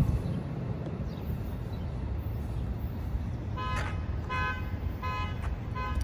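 Amtrak train horn sounding four short toots about 0.7 s apart from the departing train, heard at a distance over a faint low rumble of the train moving away.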